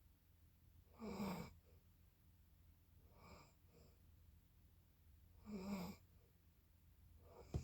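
A sleeping person snoring: two loud snores about four and a half seconds apart, with a softer breath between them. A short knock comes right at the end.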